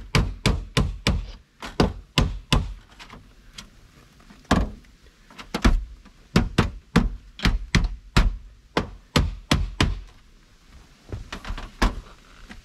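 Claw hammer driving nails through sheet-metal flashing into a plywood deck: runs of sharp strikes about three a second, broken by short pauses, with a few lighter taps near the end.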